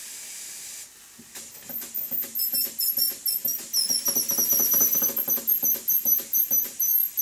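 Stuart model beam engine starting up on compressed air. A hiss of air as the line opens, then a repeated knock that quickens as the engine picks up speed, with a high squeak from air blowing past the steam chest gasket. The knocking comes from valve timing that has not been reset.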